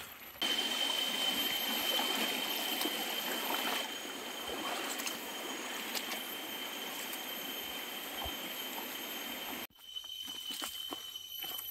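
Stream water rushing steadily, starting abruptly about half a second in and cutting off abruptly about two seconds before the end, with a steady high-pitched tone above it; after the cut, faint scattered clicks.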